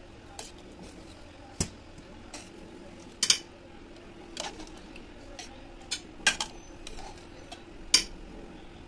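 Metal spoon clinking and knocking against aluminium pots while blanched spinach is lifted into cold water, a sharp clink every second or so at an uneven pace, over a faint steady hum.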